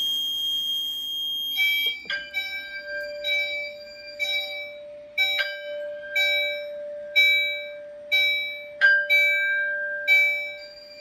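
A steady high beep, then about two seconds in, the voice evacuation system's supervisory alert tone starts: a repeating chime-like pattern of short notes about once a second over a held lower tone. This is the fire alarm system signalling a supervisory condition after the duct detector's test button was pressed.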